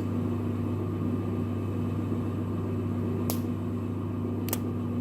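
Steady low machine hum, with two faint clicks in the second half.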